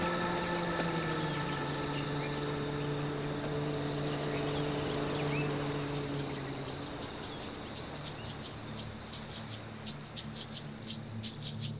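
Held low drone notes of a film score shift down about a second in and fade out, over a jungle ambience with scattered bird chirps. Near the end a fast, dry rattling clicking builds up.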